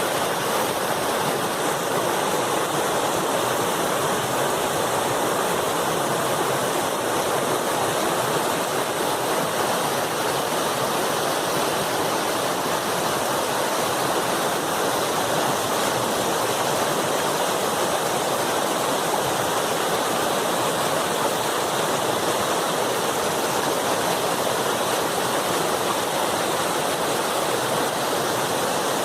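Strong river water rushing over rocks in a steady, unbroken roar of running water.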